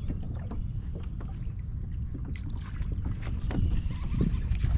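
Wind buffeting the microphone as a steady low rumble, with small waves slapping against a plastic fishing kayak's hull and scattered light clicks. The splashy water sound grows a little louder over the second half.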